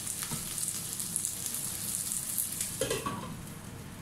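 Onion, garlic, ginger and green chilies sizzling in hot oil in a stainless steel pan, with small crackles. A little before three seconds in, the glass lid knocks onto the pan and the sizzle turns softer.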